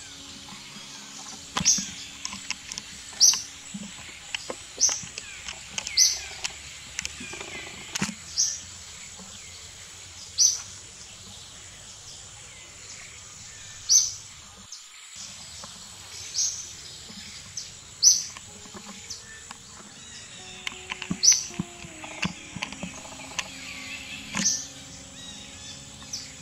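A bird's short, sharp, high-pitched chirps, about a dozen at uneven gaps of one to four seconds, over soft background music.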